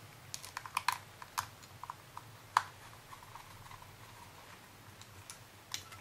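Irregular light clicks and taps of the Bose SoundDock Portable's plastic housing and its screws being handled as the dock is turned over and the screws are set back in their holes. The clicks come in a cluster over the first few seconds, the sharpest about two and a half seconds in, with a couple more near the end.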